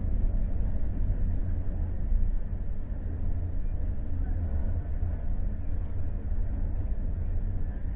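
Steady low rumble of a moving vehicle heard from inside the cabin, with faint voices underneath.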